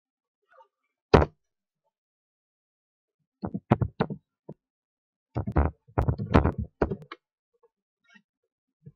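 Computer keyboard keys being struck: one hard key press about a second in, then a quick run of four or five taps, then a longer run of about eight, as short commands are typed.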